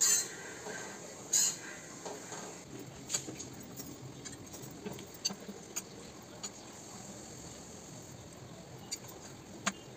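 Metal tongs and utensils clicking and tapping against cookware on a gas stove: a string of sharp, irregular clicks over a faint steady hiss.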